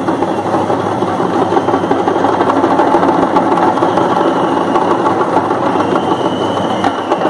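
Parai frame drums beaten with sticks in a fast, unbroken roll of dense, even strokes.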